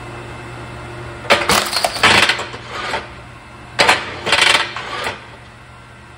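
Forestwest BM11056 kinetic log splitter's 2 HP electric motor and flywheel running with a steady hum, while the ram is engaged twice, driving the log against the wedge; each stroke is a loud clattering crack lasting about a second and a half.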